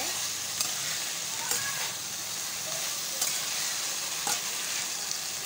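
Okra, potato and small fish sizzling in oil in a kadai while a spatula stirs it, with a few sharp clicks of the spatula against the pan. The cooking water has boiled off, so the curry is frying dry.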